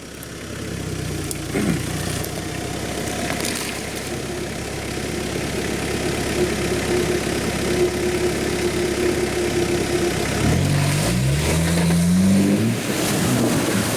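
Off-road 4x4's engine running steadily and slowly getting louder, then revving up in several rising steps in the last few seconds as it accelerates.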